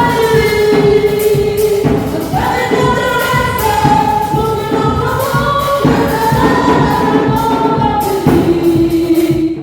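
Gospel choir singing with a band and a steady beat, cutting off suddenly at the end.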